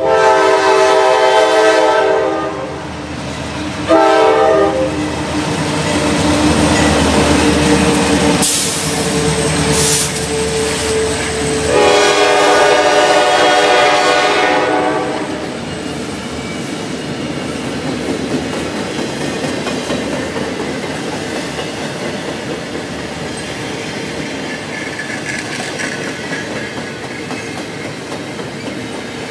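CSX double-stack intermodal freight train passing close by: the lead locomotive's multi-chime air horn sounds a long blast, a short one about four seconds in, and another long blast about twelve seconds in. From about fifteen seconds on, the steady rumble and clatter of the container well cars' wheels rolling past on the rails.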